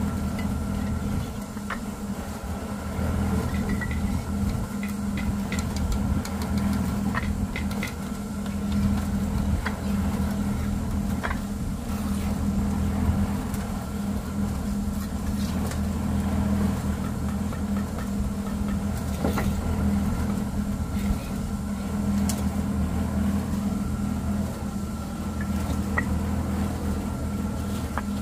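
Small motorbike engine running steadily under way, a constant low drone with a few faint clicks and rattles.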